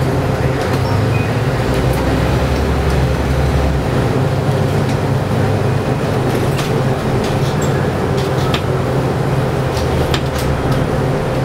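City bus engine and drivetrain running, heard from the front of the passenger cabin: a loud, steady hum with a deep engine note heaviest in the first few seconds as the bus gets under way, and scattered faint ticks and rattles from the cabin.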